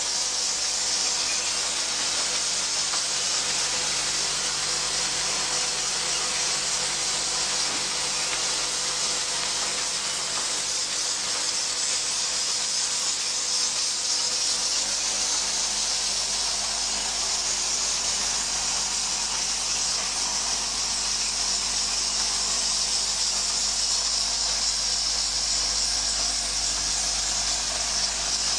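Automatic syringe assembly machine running, a steady high-pitched hiss with a faint hum beneath it.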